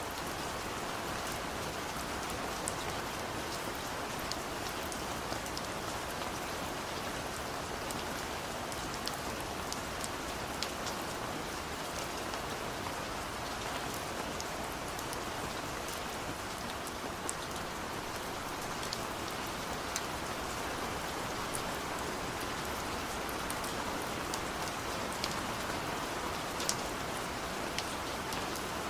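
Steady rain falling, with scattered sharper drop ticks.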